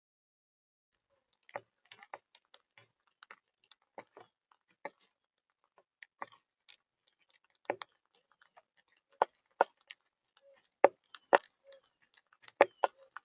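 Quaker parrots (monk parakeets) crunching and cracking food with their beaks: irregular sharp cracks and crunches, sparse at first and louder and more frequent in the second half.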